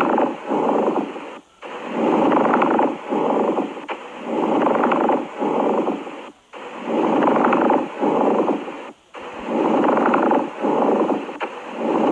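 Lung sounds of steady breathing, about five breaths about two and a half seconds apart. Each breath is a longer rush of air followed by a shorter one, with a brief pause before the next.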